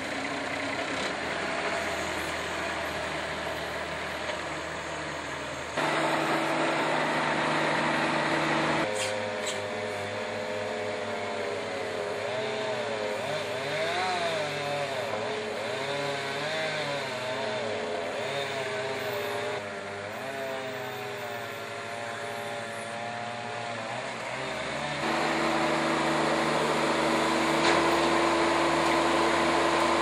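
Boxer mini skid steer's diesel engine running, its pitch rising and falling in the middle stretch as the machine works. The sound changes abruptly a few times.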